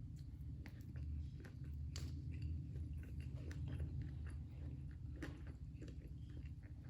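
Close-miked chewing and biting: a person eating raw vegetables and chicken, with many small crunches and wet mouth clicks scattered irregularly through it.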